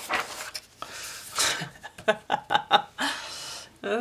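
A page of a paperback coloring book turned over with a papery rustle, then a short breathy chuckle of about five quick pulses a little over two seconds in.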